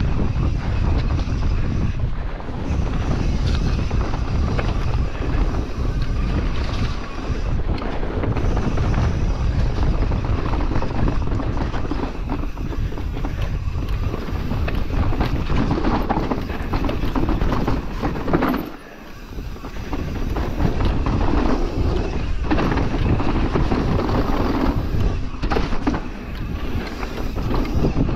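Wind buffeting the microphone and a mountain bike's knobby tyres rolling fast over a dirt trail, with frequent knocks and rattles from the bike. The noise drops away for about a second two-thirds of the way through.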